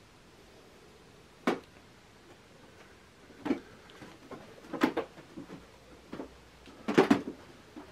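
Short knocks and taps at uneven gaps of a second or two, about six in all, the loudest near the end, against quiet room tone in a small room.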